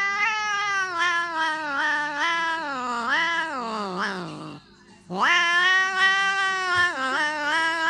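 Domestic cat yowling in two long, drawn-out calls. The first wavers up and down and slides down in pitch at its end. After a short pause, the second holds a steadier pitch.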